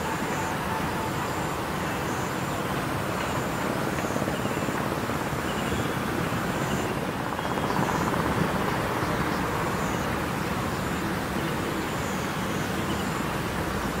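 Steady city traffic noise, swelling slightly about eight seconds in, with a faint high repeated tone.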